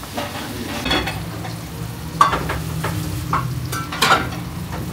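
Metal spoons clinking against metal bowls and steel serving trays while people eat, several sharp ringing clinks in the second half over a steady low hum.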